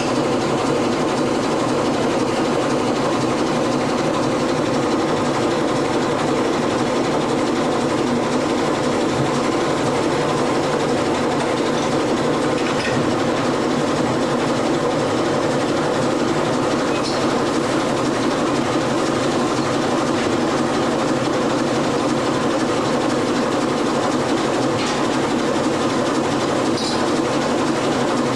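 A fishing trawler's deck machinery runs steadily and loudly as a continuous mechanical drone while the trawl gear is being hauled aboard. A few faint knocks sound over it.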